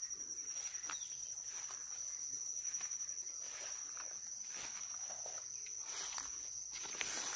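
Insects trilling steadily at one high pitch, with soft footsteps swishing through wet grass.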